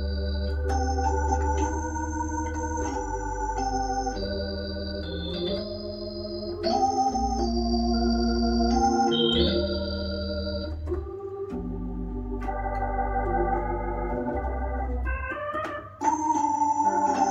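Hammond H112 tonewheel console organ playing sustained chords that change every second or two, with deep bass notes underneath. Near the end comes a quick run upward, a brief dip, then a loud full chord.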